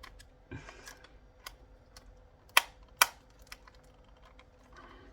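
Small clicks and taps of a screwdriver and screws on the plastic casing of a radio-control car handset as it is unscrewed, with two sharp clicks about half a second apart near the middle.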